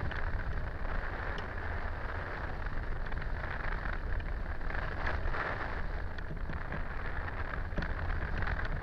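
Wind rushing over a hang glider-mounted camera's microphone in flight: a steady hiss over a low rumble that wavers with the airflow.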